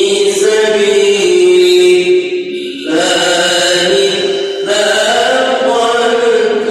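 A man's voice chanting the Quran in melodic tajweed recitation, drawing out long held notes that slide slowly in pitch, with a short breath break about three seconds in.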